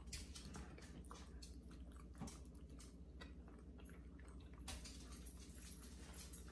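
Faint close-up chewing of chili dogs and chili cheese potato wedges: scattered small wet mouth clicks and smacks over a steady low hum.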